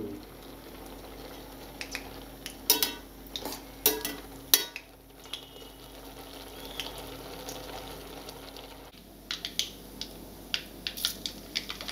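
A spoon stirring in a steel pot of cooked noodles, with a few sharp clinks against the pot. After a sudden break near the end, a run of small crackles from seeds frying in hot oil in a kadai.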